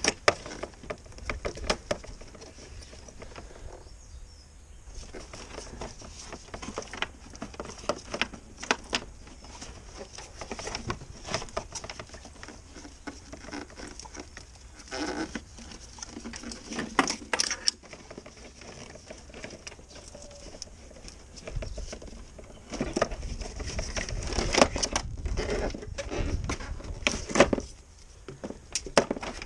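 Irregular clicks, scrapes and rustles of gloved hands working a rubber grommet loose and pulling the old aerial cable through the car's scuttle panel. A low rumble joins in for several seconds near the end.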